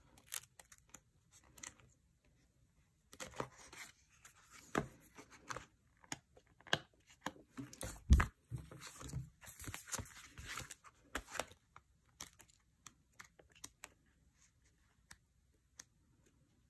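Paper sticker sheets rustling and crinkling as a sticker book's pages are leafed through, with scattered light clicks and one sharper thump about eight seconds in; the handling thins out to a few faint ticks near the end.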